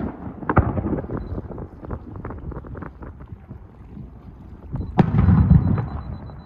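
Aerial firework shells bursting: a sharp bang less than a second in, then scattered crackling, and a bigger bang about five seconds in followed by a low rumbling boom lasting about a second.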